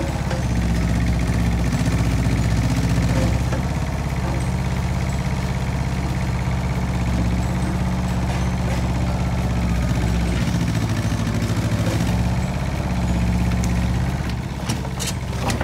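Mini excavator's diesel engine idling steadily, with a few sharp clicks near the end.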